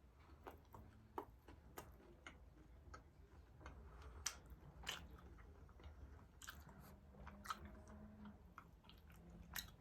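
Faint chewing of a milk chocolate bar with puffed rice: irregular small crisp crunches scattered through the chewing.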